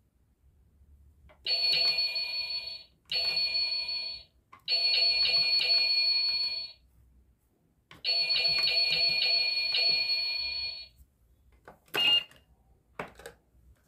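Electronic tone from a battery-powered toy shop register and ordering screen, sounding in four bursts of one to three seconds as its buttons are pressed; the tone pulses rapidly. About twelve seconds in comes a sharp click with a short beep, and another click a second later.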